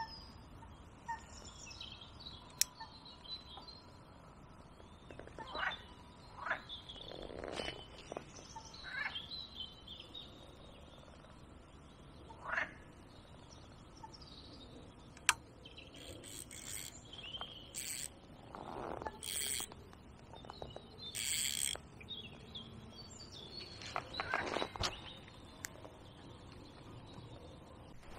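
Birds chirping and calling now and then, with a few sharp clicks and rustles from fishing tackle being handled.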